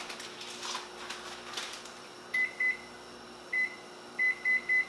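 Keypad beeps of a digital kitchen timer being set: six short beeps of one high pitch, starting about two seconds in, the last three in quick succession.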